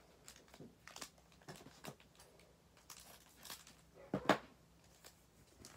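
Foil wrapper of a trading-card pack crinkling faintly in the hands as it is handled and opened, in scattered soft crackles, with one short, louder sound about four seconds in.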